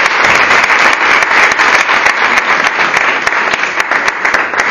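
Audience applauding, many hands clapping at once in a dense, even spatter.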